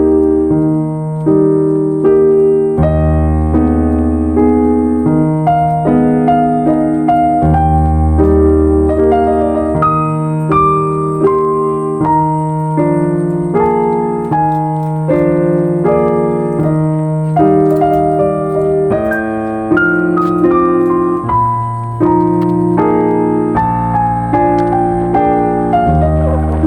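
Background piano music: a steady run of melody notes over low bass notes held for a couple of seconds at a time.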